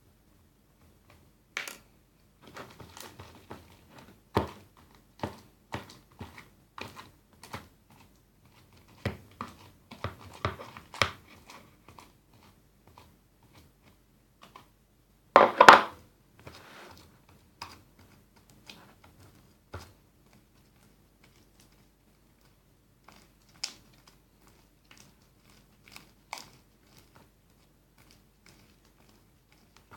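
Freshly made glue slime being kneaded and pulled by hand: irregular sticky clicks and pops, with one louder crackling burst about halfway through.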